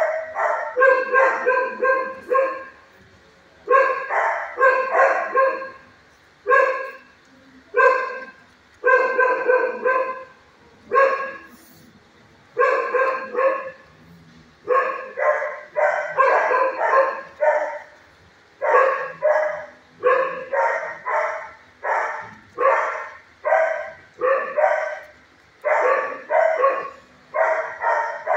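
Dog barking over and over in quick runs of a few barks, with short pauses between runs, in a shelter kennel.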